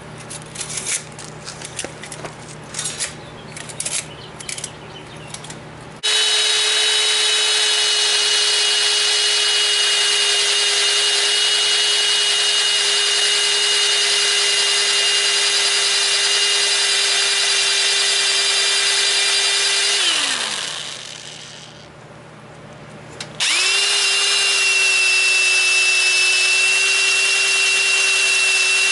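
A few light clatters and knocks, then a handheld electric power tool starts and runs with a steady high whine. After about fourteen seconds it winds down with a falling pitch, stops, and starts again about three seconds later, running steadily.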